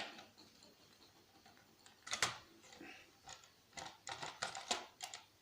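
Scattered sharp clicks and taps of small hard parts and a screwdriver being handled while a PlayStation 3 disc drive is unscrewed and taken apart. The loudest click comes about two seconds in, followed by a quicker run of lighter taps.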